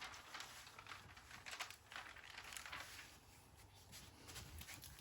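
Faint, irregular rustling and crinkling of a diamond-painting canvas's plastic cover film as it is lifted and smoothed flat by hand.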